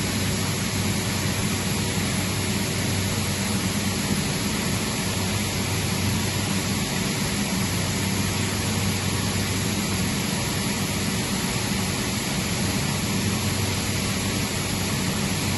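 Atlas Copco GA160FF oil-injected rotary screw air compressor running steadily, a loud even hiss with a low hum under it.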